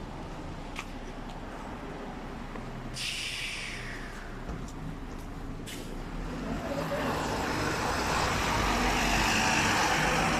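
Diesel city bus: over a steady low engine hum, a sudden hiss of compressed air about three seconds in fades away over a second or so, typical of the air brakes releasing. From about six seconds the engine and rolling noise grow steadily louder as the bus moves off.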